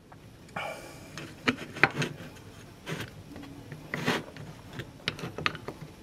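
Scattered small clicks and knocks of metal parts as a cultivator gearbox's worm shaft and bearing are handled and seated into the greased aluminium housing.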